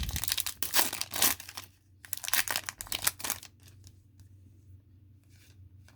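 Wrapper of a football trading-card hobby pack being torn open and crinkled in two spells, then fainter rustling as the cards are handled.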